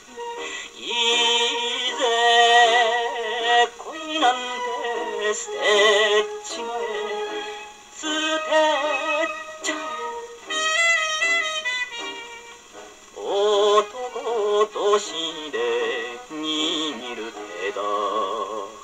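A 78 rpm record of a Japanese popular song played on a portable acoustic phonograph with a steel needle. The sound is thin and has no deep bass.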